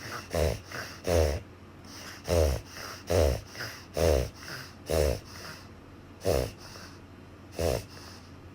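French bulldog reverse sneezing: a run of loud, pig-like snorting pulls of air through the nose, about one a second, with softer breaths between. The snorts space out and stop about a second before the end.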